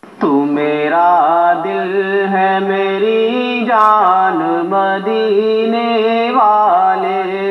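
A male voice singing a naat unaccompanied, a slow melody with gliding ornaments over a steady low drone. It starts just after a moment of silence.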